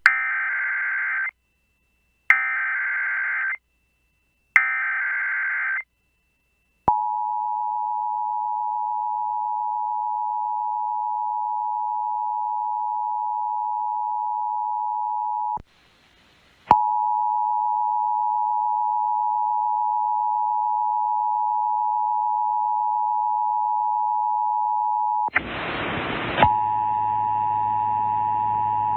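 Emergency Alert System SAME header: three short raspy digital data bursts about a second apart, followed by the EAS two-tone attention signal, a steady dual-pitched tone. The tone drops out for about a second midway, and a loud burst of noise breaks in near the end before the tone resumes with a low hum under it.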